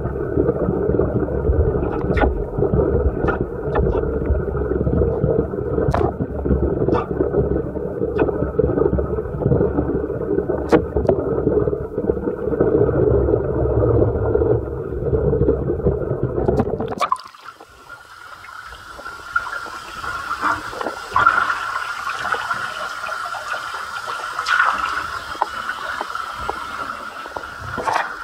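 Muffled underwater rumble and sloshing from a camera submerged in water, with scattered sharp knocks. About two-thirds of the way through it changes suddenly to a quieter, clearer sound as the camera comes out of the water.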